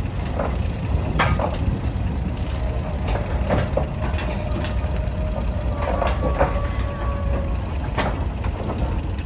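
Toro golf course tractor's engine running at low speed as it drives slowly forward, with scattered clicks from the gravel under its tyres.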